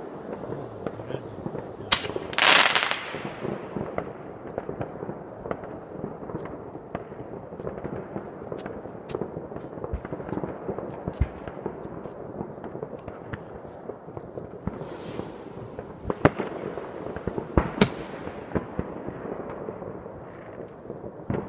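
Fireworks and firecrackers going off all around: a steady rumble of many distant bangs and crackles, a loud hissing burst near the start, and a few sharp, close bangs past the middle.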